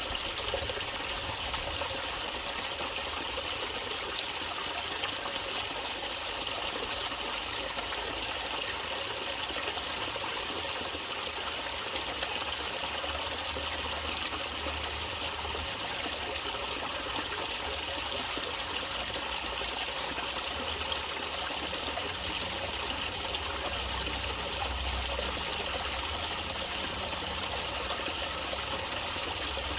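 Running water trickling and splashing steadily, as from a small stream or a brook over rocks.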